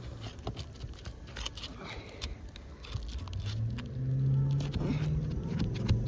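Asphalt shingles being pried loose with a flat shingle bar: scattered small crackles and scrapes as the sealant bond tears and the shingle is worked. A low steady hum comes up about halfway through.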